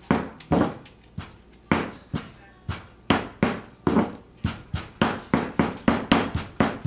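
Stone pestle pounding avocado in a volcanic-stone molcajete: a run of sharp knocks, about two a second at first, speeding up to about four a second in the second half.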